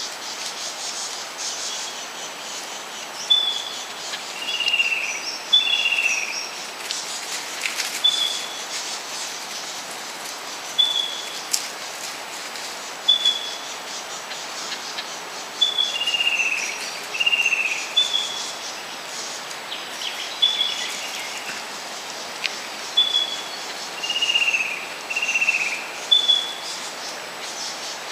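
Birds calling in bushland: a short, high note repeats every two seconds or so, and three times a pair of falling whistles sounds over a steady background hiss.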